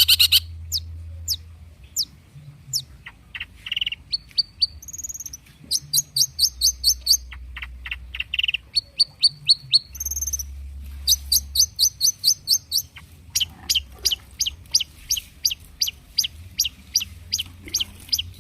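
Long-tailed shrike singing: short downward-slurred whistles, then rapid trains of sharp, high chips, about three to four a second near the end.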